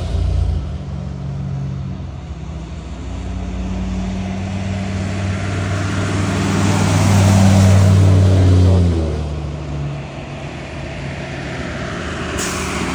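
A bus driving past, its engine drone building to its loudest about eight seconds in, then falling away and dropping slightly in pitch as it passes.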